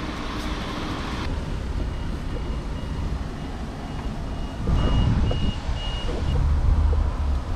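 A faint, high electronic beep repeating about twice a second for several seconds, over low rumbling that gets louder about five seconds in. A steady hiss cuts off about a second in.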